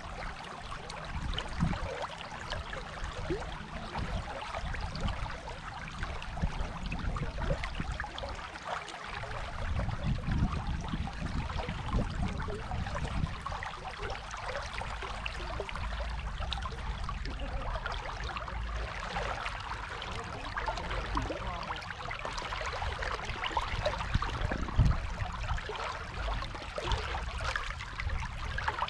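Dunajec river water rushing: a steady, even hiss, with a low rumble under it that dips briefly about nine seconds in.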